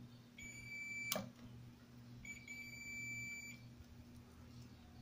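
Multimeter continuity beeper sounding twice, a short steady high beep and then a longer one, as the probes bridge a MOSFET's drain and source pins: the beep signals a short between drain and source. A light click comes at the end of the first beep.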